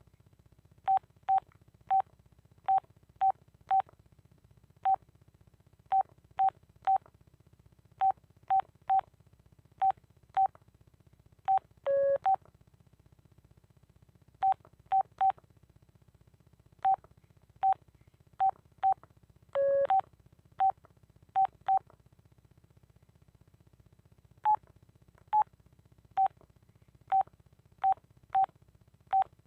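Key beeps from a Telit mobile phone as its buttons are pressed: many short, high single beeps at an uneven pace, interrupted twice by a longer, lower tone.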